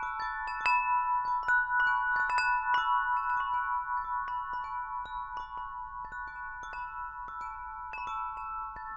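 Large wind chime of tuned aluminium tubes ringing as the clapper strikes them at irregular intervals, several tones overlapping and hanging on between strikes. The strikes come thickest in the first few seconds and thin out in the middle.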